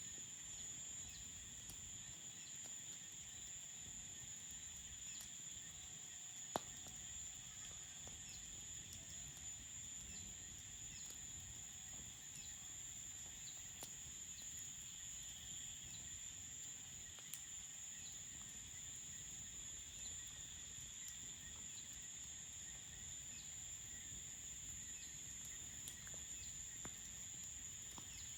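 Crickets chirring in a steady high-pitched night chorus, with sparse faint campfire crackles and one sharper crack about six and a half seconds in.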